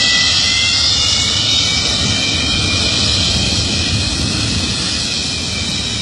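MiG-23BN's single Tumansky R-29B-300 turbojet running during a ground engine test as the jet taxis: a loud, steady jet hiss that eases off slightly toward the end.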